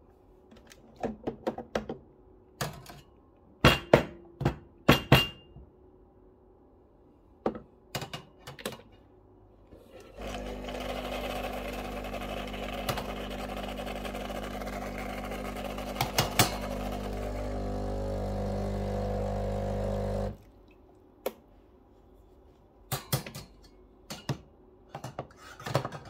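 Several sharp clacks and knocks of the metal portafilter being handled, the loudest a few seconds in. In the middle, the Breville Barista Pro's built-in grinder runs steadily for about ten seconds, a low hum with grinding over it, then stops suddenly, and more knocks follow.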